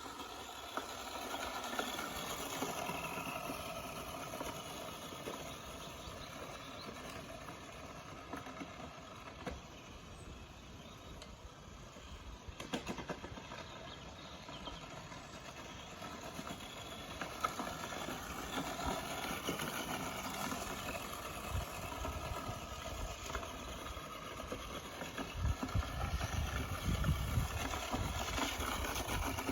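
Electric motor of a vintage radio-controlled car whining at a varying pitch as it is driven, over tyre and ground noise, with a louder low rumble near the end.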